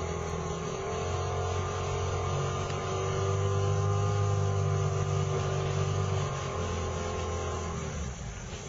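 Boat engine running steadily, a little louder through the middle and easing off near the end.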